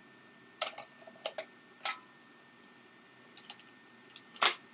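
Plastic parts of an Xbox 360 Slim being handled and pushed into place: a handful of short sharp clicks and knocks, the loudest near the end, over a faint steady high whine.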